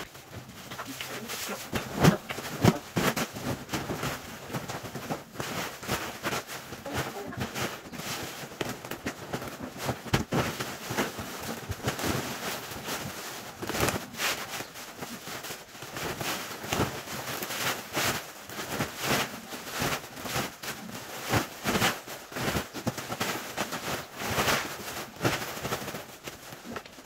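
Large woven polypropylene bulk bag and its plastic liner rustling and crinkling as they are handled and opened out, a dense run of irregular crackles.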